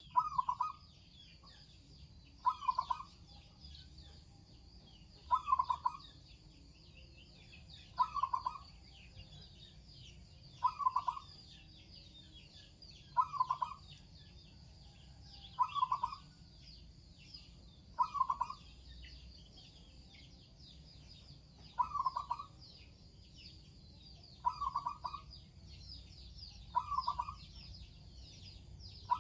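Zebra dove (perkutut) cooing: a short phrase repeated about every two and a half seconds, a dozen times, with a brief longer pause about two-thirds of the way through. A steady high chirring runs underneath.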